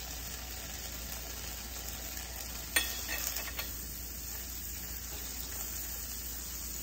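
Butter and sliced hot cherry peppers sizzling steadily in a hot frying pan. About three seconds in there is one sharp tap, then a few lighter taps, as a silicone spatula stirs them in the pan.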